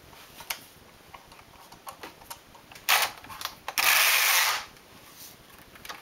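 Knitting machine carriage pushed along the metal needle bed, knitting a row on all needles. A short hissing slide comes near three seconds and a longer, louder one of under a second about four seconds in, with light scattered clicks around them.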